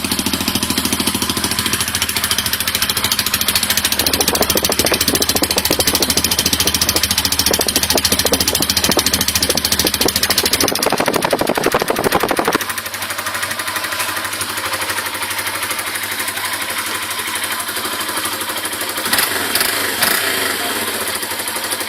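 Yamaha Fazer 150's single-cylinder four-stroke engine running at idle through an aftermarket Roncar Coyote 2Way exhaust, a steady rapid exhaust pulse. A little past halfway it becomes quieter and less bassy and stays that way.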